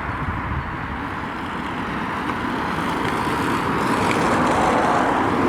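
Road traffic noise: a steady rush that grows gradually louder over the last couple of seconds.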